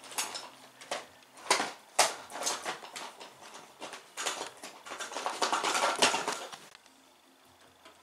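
Scattered clinks and knocks of small hard objects being handled, then a longer stretch of rubbing noise about five seconds in.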